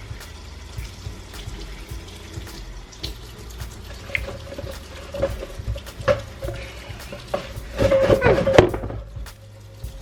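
Smoothie sloshing in a lidded cup as it is shaken and handled, with small clicks and knocks, building to a louder burst of rapid shaking about eight seconds in that stops suddenly.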